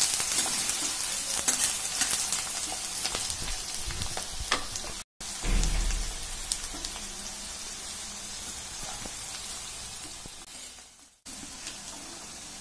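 Chopped onions frying in mustard oil in a metal kadai, sizzling with many small pops, while a spatula stirs them. The sizzle drops out briefly about five seconds in, with a low thump just after, and fades out again near the end before coming back.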